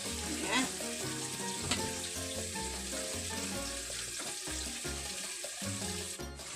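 Background music with a steady bass line over an even hiss of running water, as from a tap rinsing the toy washing machine.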